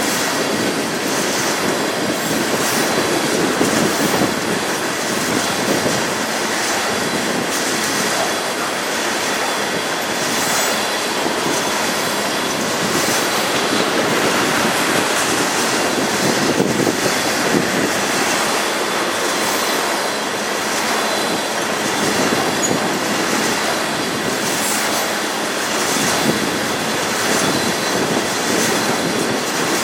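Freight train cars rolling past at close range: a steady rumble of wheels on rail with irregular clacks as the wheels cross rail joints.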